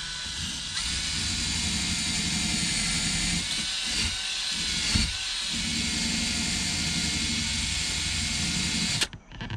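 DeWalt cordless drill spinning a wire wheel brush against a battery cable's ring terminal, scrubbing the corrosion off. A steady motor whine with a scratchy hiss of the wire bristles on metal; it stops suddenly about nine seconds in.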